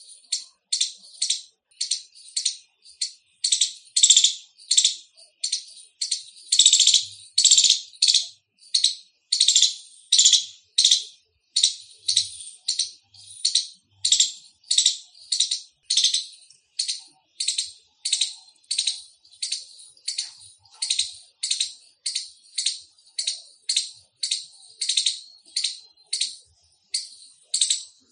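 Indian palm squirrel giving its loud chirping call: short, sharp, high-pitched chips repeated steadily at about two a second.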